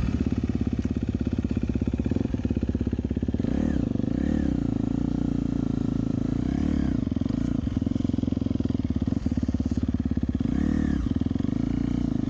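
Dirt bike engine running at a low, steady pulse, with a few short revs that rise and fall.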